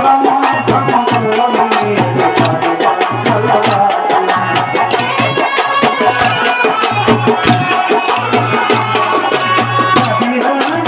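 Kolatam folk dance music: a drum beating a steady rhythm under a melody, with many sharp clacks of the dancers' wooden sticks striking together in time.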